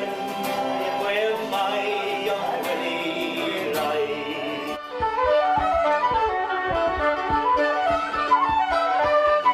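Irish traditional session music: fiddle and acoustic guitar playing a tune. About halfway through it jumps to another tune, with flute and fiddles over a steady strummed guitar beat.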